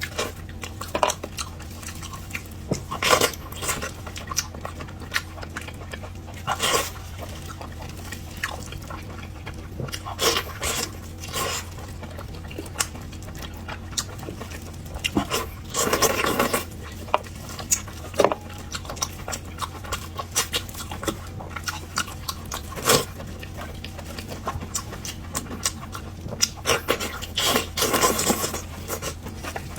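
Close-miked eating sounds of stewed lamb ribs: irregular wet chewing, lip smacks and mouth clicks, with a few longer sucking sounds about a second long, over a steady low hum.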